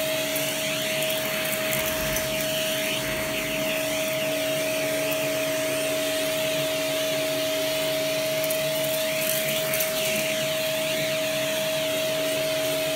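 Vacuum cleaner running with a steady motor whine while its crevice nozzle is swept over a countertop, sucking up small red plastic shavings; the hiss of the airflow shifts in tone as the nozzle moves.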